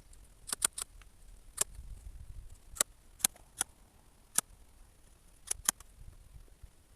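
About ten sharp, short clicks and knocks at irregular intervals, some in quick pairs.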